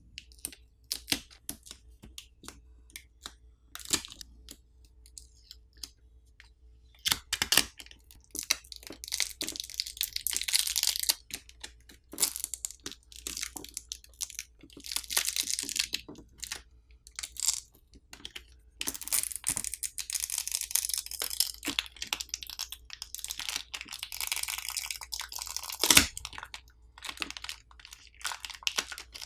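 Nothing Phone (1) battery being pulled up off its adhesive with the pull tab. Scattered clicks and taps, then stretches of sticky tearing as the adhesive lets go: about 7 seconds in, again around 15 seconds, and a longer one from about 19 to 25 seconds. A sharp knock near the end is the loudest sound.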